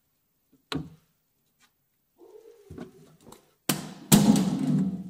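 A few sharp clicks and knocks from hand tools on a car's front brake hose fitting. Near the end comes about a second of loud, close rustling and scraping.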